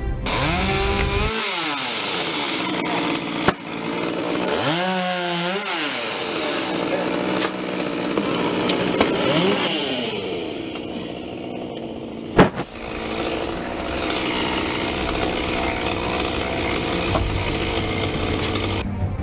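Chainsaw running, its engine revving up and down several times. A sharp knock comes about three and a half seconds in, and a louder crack about twelve seconds in.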